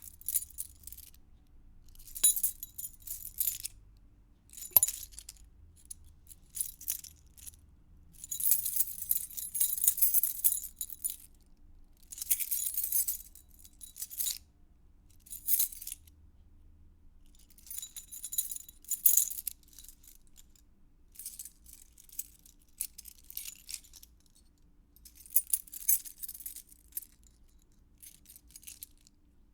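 A bunch of metal keys being handled and jangled: repeated bouts of high-pitched jingling and clinking, some brief shakes and some longer jangles lasting a second or two, with short pauses between them.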